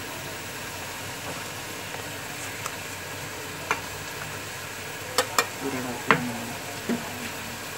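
Metal spoon scraping and clinking against a steel plate and steel tumbler as spice powders are tipped in, with a few sharp clinks in the second half, two of them close together. Under it a steady sizzle of onion and tomato frying in oil.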